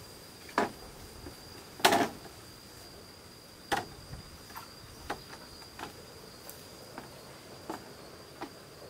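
Hollow knocks of green bamboo poles being handled and laid on a bamboo platform, a string of separate sharp clacks with the loudest about two seconds in. A steady high insect drone runs underneath.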